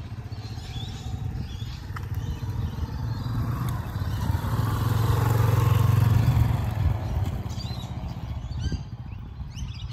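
Yamaha XT250 single-cylinder dirt bike engine running at low speed while the motorcycle is ridden slowly close by. It grows louder to a peak about halfway through, then fades. Birds chirp near the end.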